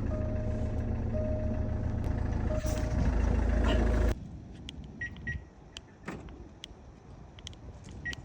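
Jaguar XF engine running steadily after starting on a newly programmed key that the immobiliser has accepted, with a steady tone over it. The sound cuts off abruptly about four seconds in, leaving a few light clicks and two pairs of short high beeps.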